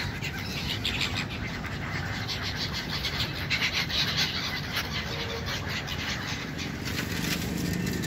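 A flock of gulls calling, many short harsh calls crowding over one another and thickest around the middle, over a steady low rumble.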